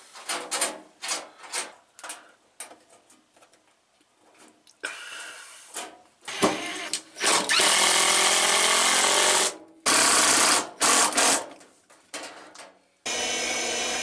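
Cordless drill driving screws: one steady run of about two seconds, then two short bursts.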